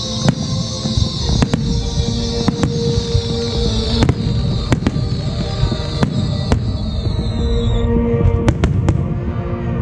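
Aerial fireworks: shells bursting with a series of sharp bangs, several a few seconds apart, over a dense crackling hiss from glittering stars that stops about eight seconds in.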